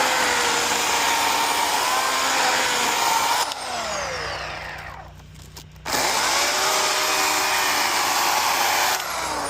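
Chainsaw running at full throttle. About three and a half seconds in it eases off, its pitch falling toward idle. It is throttled sharply back up about six seconds in, then eases off again near the end.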